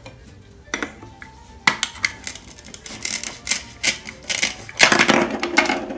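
Plastic toy fruit clattering and knocking on a plastic cutting board as a toy knife is pressed into a Velcro-joined toy orange. A denser, louder rasping stretch about five seconds in is the loudest part, as the knife pulls the halves apart.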